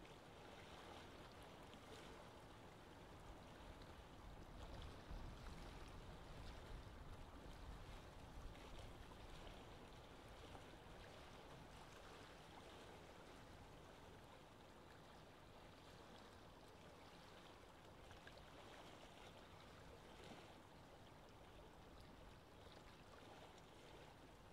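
Faint, steady rush of choppy sea water, heard from a small boat.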